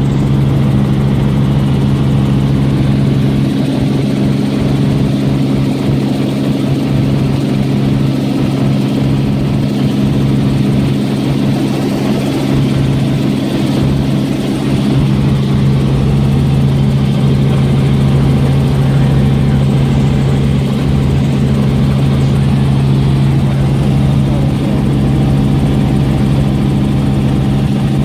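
Helicopter in flight heard from inside the cabin: a loud, steady low drone from the engine and rotor.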